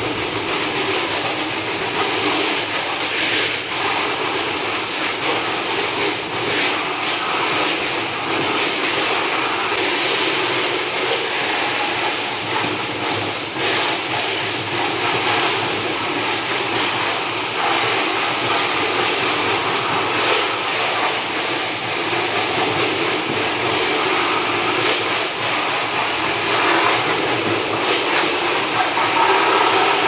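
High-pressure water jet spraying the plastic drinker lines and wet floor of a poultry house: a steady hissing rush of spray that wavers a little in level.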